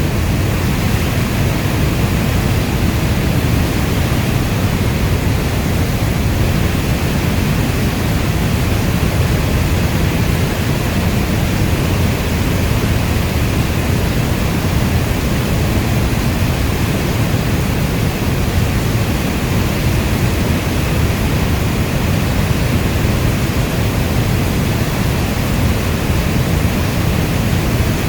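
Steady rainstorm noise: dense, even rain hiss with a deep low rumble underneath, unchanging throughout.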